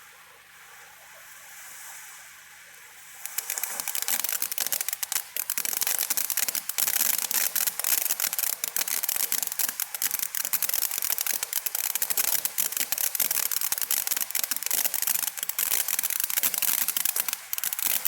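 Firework fountain spraying with a soft hiss, which about three seconds in breaks into loud, dense, fast crackling that keeps going.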